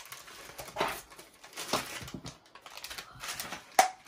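Irregular light clicks and rustles of plastic toy moulds and packaging being handled on a tabletop while kinetic sand is tipped out and pressed, with one sharp plastic click near the end.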